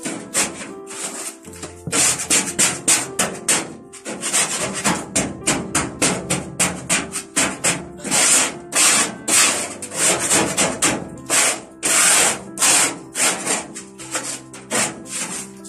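A brush sweeping burnt bread crumbs and debris across the metal floor of a gas oven, in quick rough strokes about two to three a second with a few short pauses.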